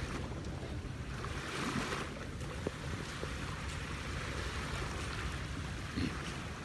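Small waves washing on a sandy beach, with wind rumbling on the microphone; the wash swells briefly about one and a half seconds in.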